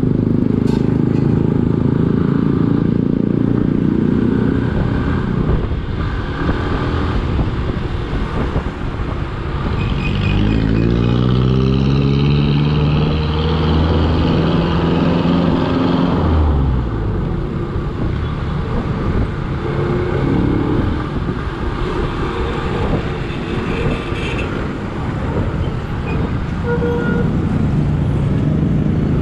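Motorcycle riding in city traffic: engine running under heavy wind rumble, with an engine rising in pitch about ten seconds in, holding for a few seconds, then dropping away.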